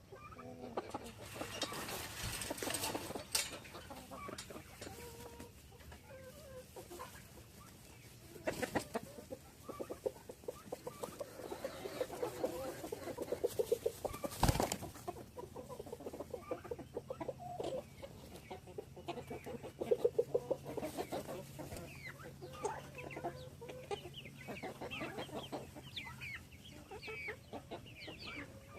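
A flock of farm poultry clucking and calling in many short, overlapping calls, with higher chirping calls joining in the later part. A sharp knock comes about halfway through.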